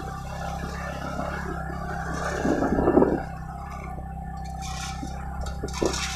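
Motorcycle engine running at low speed as the bike rolls along a rough dirt road, with a louder rough stretch of noise about two and a half seconds in.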